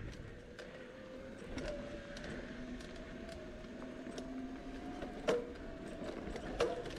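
Bicycle rolling along a dirt trail: a steady hum that slowly rises in pitch, with scattered clicks and rattles and two louder knocks from bumps, a little past five seconds in and again near the end.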